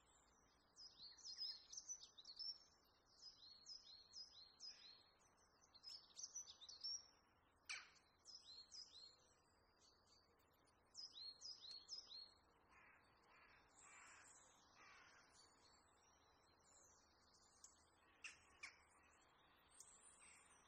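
Faint birdsong: high, quick chirps that slide downward, repeated in rapid runs, with a few lower, rougher calls about two-thirds of the way through.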